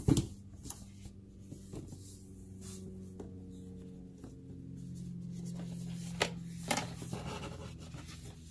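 Cardboard game board being handled and unfolded: light rubbing and a few sharp taps, the first at the very start and two more about two-thirds of the way through, over faint low droning tones.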